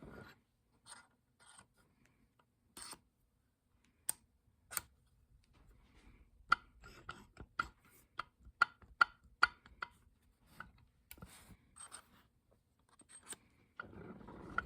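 Metal parts clinking and tapping against each other, with scattered sharp clicks that each ring briefly, coming in a quick run in the middle, and some faint scraping between them.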